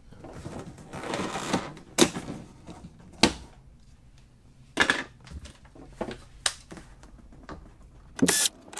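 Scattered clicks and knocks of a cordless drill-driver and bit being handled, then near the end a short burst of the drill-driver running as it backs a screw out of a wall switch panel.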